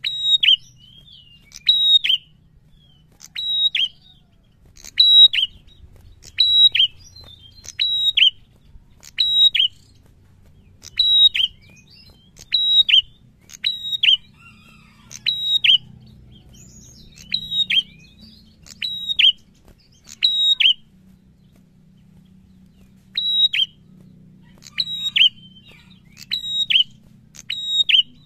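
Caged prenjak songbird calling over and over, a sharp, high, two-note chirp about once a second, with a short break about two-thirds of the way through.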